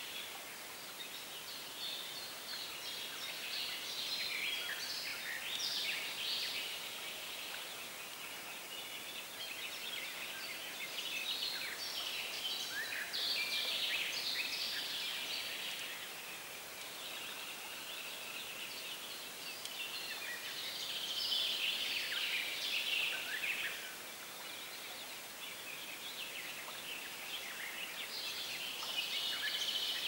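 Several songbirds singing together in a dense chorus of chirps and trills that swells and fades in waves, loudest around the middle, again about two-thirds through, and near the end.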